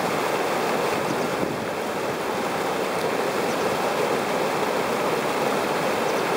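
Water pouring over a low weir and churning into whitewater below: a steady, even rushing with no breaks.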